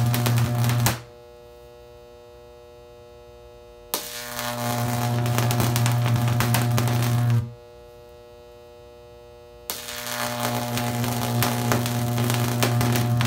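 High-voltage sodium arc buzzing loudly, a strong low hum laced with crackle. It cuts out about a second in, strikes again about four seconds in, cuts out again at about seven and a half seconds, and strikes again just before ten seconds.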